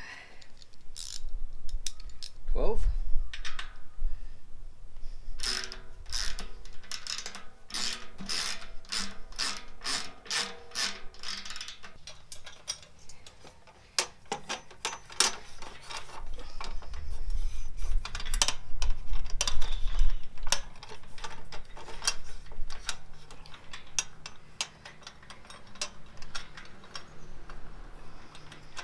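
Ratchet wrench clicking through repeated runs of quick strokes, with some duller low knocks in between.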